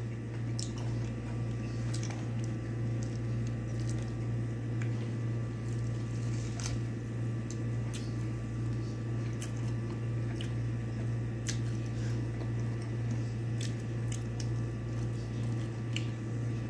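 Eating by hand: soft squishing of fingers working through rice and chicken on a plate, with scattered small clicks and chewing. Under it runs a steady low hum, the loudest thing heard.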